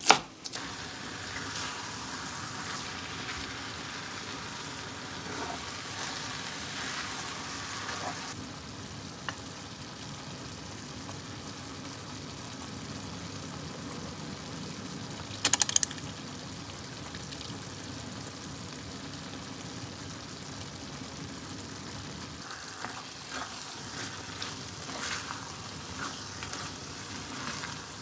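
Minced meat and chopped greens frying in a cast-iron braiser, sizzling steadily, with the scrape of a spatula stirring them. A brief louder noise comes about halfway through.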